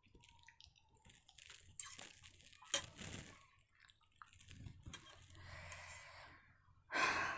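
Eating sounds: chewing, with scattered clicks and scrapes of a metal fork against a plate, one sharp click about three seconds in and a louder burst of noise near the end.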